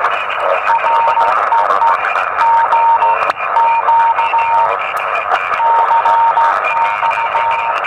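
Morse code (CW) received on a Yaesu portable HF transceiver in the 40 m band: a steady tone of about 950 Hz keyed in dots and dashes over receiver hiss. The signal comes from a 2-watt QCX QRP transmitter and reads S8.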